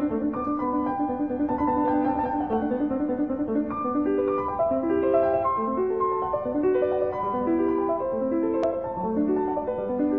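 Background piano music: a melody of short notes stepping up and down over a steady accompaniment.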